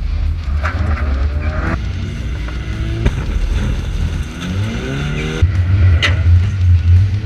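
Four-cylinder compact demolition-derby car engines revving hard, their pitch rising and falling, with tyres skidding on the wet track. A sharp hit sounds about six seconds in.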